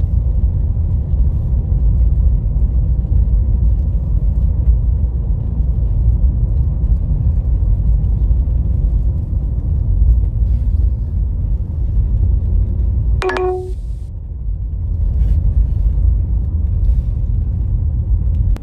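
Car in motion heard from inside the cabin: a steady low road-and-engine rumble. About thirteen seconds in comes a brief pitched sound lasting under half a second.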